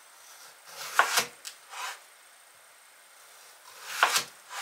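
Household handling sounds: a short rub ending in a sharp knock about a second in, followed by two lighter knocks, then another rub and knock near the end.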